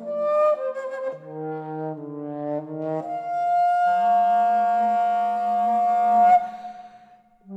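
Bass flute played with extended techniques: a quick run of short notes, then about three seconds in a long held tone with many overtones that breaks off near the end, leaving a faint fading tone.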